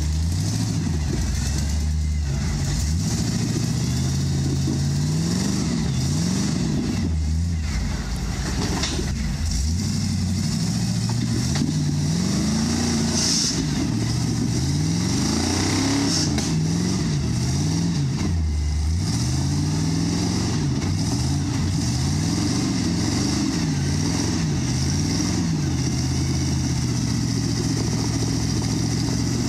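Lifted Jeep's engine revving up and down again and again as it tries to climb a rocky ledge, its tyres spinning on the rock.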